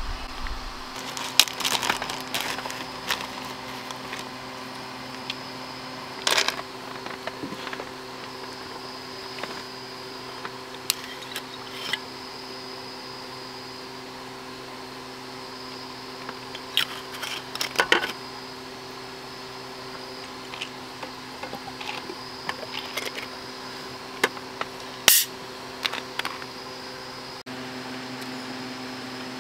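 Tableware and glass bottles being handled during a meal and while mixing a drink: scattered clicks and knocks, a few louder ones standing out, over a steady low hum.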